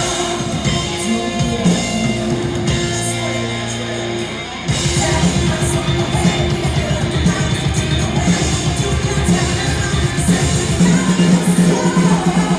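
Live rock band playing, with electric guitars and a drum kit. The first few seconds are held notes, and about five seconds in the full band comes in louder with driving drums.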